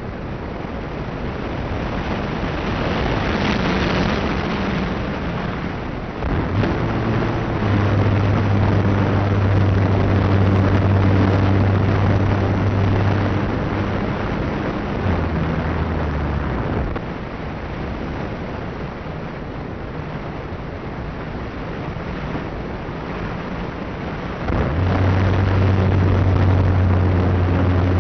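Wind rushing and buffeting on the microphone. A low, steady motor hum comes in about six seconds in, drops in pitch midway, cuts out, and comes back near the end.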